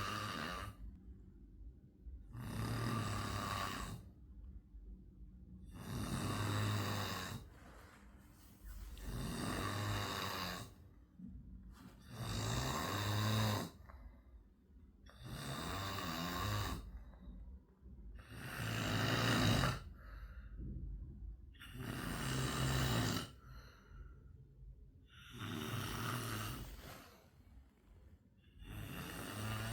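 Snoring in a slow, even rhythm: one long snore about every three and a half seconds, with quieter breathing between.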